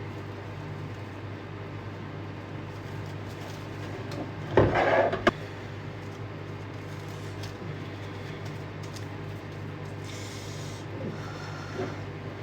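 Kitchen handling noise over a steady low appliance hum: a brief scrape of cookware about five seconds in, ending in a sharp knock, with a faint rustle later.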